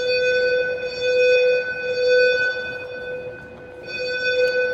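Shopping-mall fire alarm sounding: a steady, loud electronic tone with several overtones that swells and fades, dipping about three seconds in.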